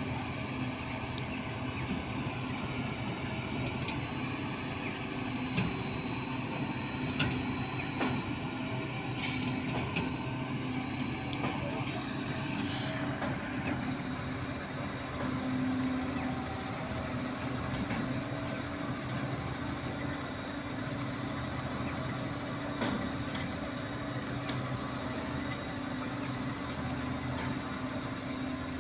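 Truck cranes' diesel engines running steadily under load as they hoist a 12-tonne water tower, a constant low drone with a few faint clicks in the first half.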